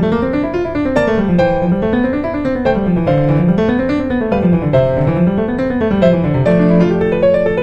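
Gentle background piano music, a bass line that climbs and falls in repeated waves under sustained chords.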